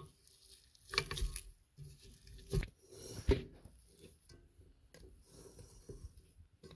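Spatula scraping stiff, half-whipped body butter off the sides and bottom of a metal stand-mixer bowl: a run of irregular soft scrapes and squishes, with a few louder knocks about a second in and again near the middle.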